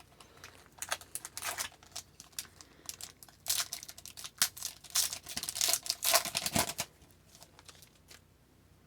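A hockey card pack's wrapper being torn open and crinkled, in irregular crackles that stop about seven seconds in.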